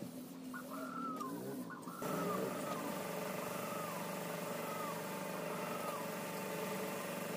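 An air compressor starts about two seconds in and runs steadily with a hum and hiss, feeding the spray painting of a steel rack, while a bird keeps up short repeated chirps.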